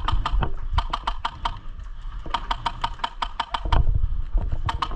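Airsoft rifle firing strings of rapid shots, about ten clicks a second. There are several short strings, the longest about a second long, midway through.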